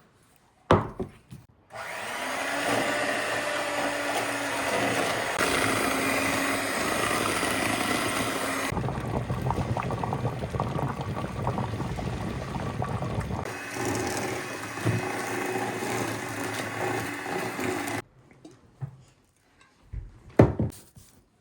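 Electric kitchen mixer running steadily for about sixteen seconds, blending the cake batter. Its sound changes between about 9 and 13 seconds in, and it cuts off suddenly. Short knocks come just before it starts and again near the end.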